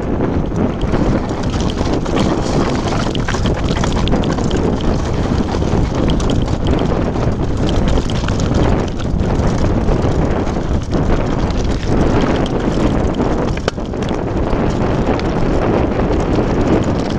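Wind buffeting the microphone over the constant rattle and crunch of a downhill mountain bike rolling over loose rocky scree, with many small knocks from the stones.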